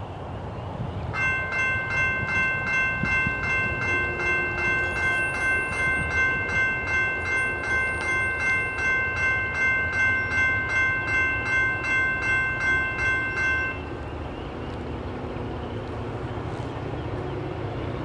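Railroad crossing warning bell ringing in a steady pulse of about two strokes a second. It starts about a second in and stops suddenly about two-thirds of the way through, once the gates are down. It is the crossing's warning that a train is approaching. A low steady rumble runs underneath.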